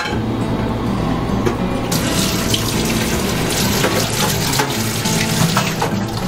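Water running steadily, like a tap into a sink, growing fuller about two seconds in.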